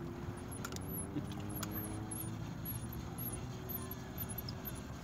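A distant engine drone whose pitch slowly falls, over a steady background hiss, with a few faint clicks.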